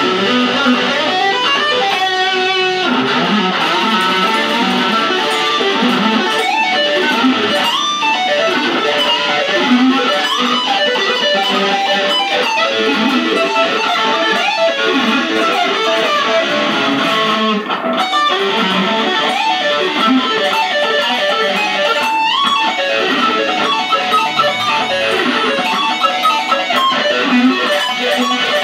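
ESP LTD EC-1000 electric guitar played through a Roland Cube amplifier: a steady stream of quick single-note lead lines.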